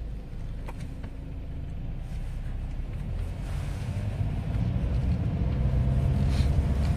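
Low steady rumble that grows gradually louder, with a few faint clicks.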